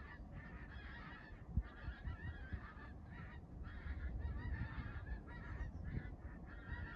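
A large skein of geese flying over in V formation, calling with many overlapping honks, faint.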